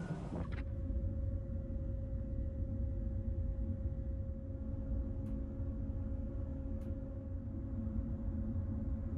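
Ferry's engine drone: a steady low hum with a held mid-pitched tone over it, starting abruptly about half a second in as the wind noise cuts out.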